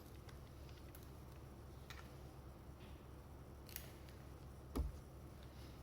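Faint metallic clicks and one louder knock a little before the end from handling the crimping tool's head and dies, over quiet room tone.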